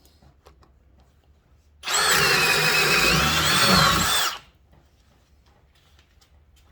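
Ridgid Octane cordless hammer drill driving a 1-inch Irwin bit through wood in one run of about two and a half seconds. It starts about two seconds in, and the motor whine dips in pitch under load and comes back up before it stops suddenly.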